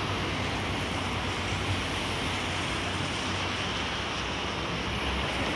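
Diesel engine of a Scania K124 double-decker coach running as the bus moves off, heard as a steady low hum under an even rushing hiss of outdoor noise.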